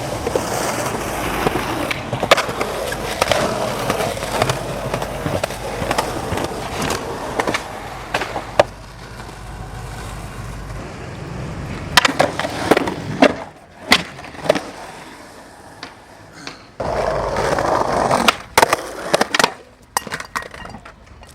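Skateboard wheels rolling on pavement. Around the middle and again near the end come a run of sharp clacks from the board popping and landing.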